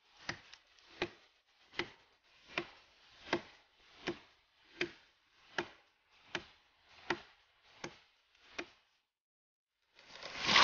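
A dozen sharp knocks at an even pace, about one every three-quarters of a second, each with a short ring, stopping a couple of seconds before the end. A louder rushing noise starts to swell just before the end.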